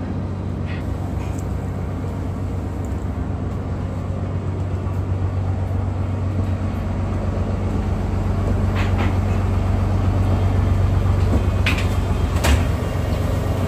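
A houseboat's engine running with a steady low hum, heard from inside a cabin, slowly growing louder. A few short clicks and knocks come through, a couple near the start and a sharper one near the end.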